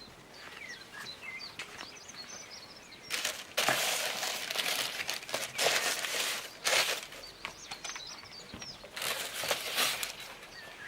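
Shoe-box paper packaging crinkling and rustling in several bursts as new shoes are unpacked by hand. Faint bird chirps come between the bursts.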